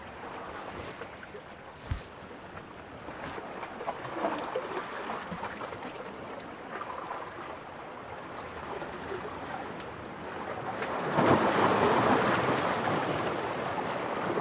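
Sea washing against the rocks of a sea wall, with wind, as a steady wash that swells louder about eleven seconds in. There is a single low knock about two seconds in.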